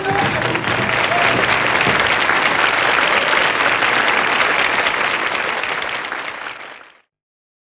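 Studio audience applauding just after the song ends; the applause fades and then cuts off suddenly about seven seconds in.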